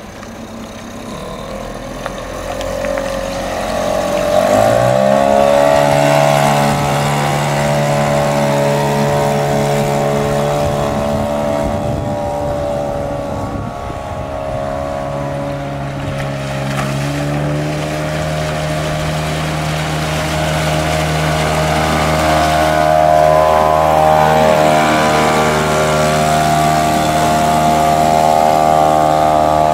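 Tohatsu 3.5 B2 single-cylinder two-stroke outboard motor pushing a small inflatable dinghy. Its note rises sharply as it revs up about four to five seconds in, then runs steadily under way, with a smaller change in pitch past the middle.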